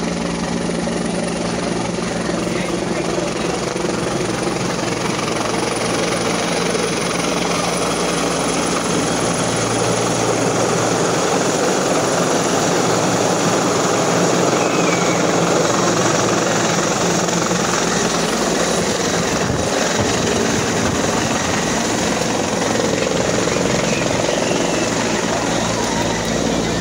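Police helicopter flying low overhead, its turbine and two-blade main rotor running steadily. The sound swells about halfway through as it passes nearest.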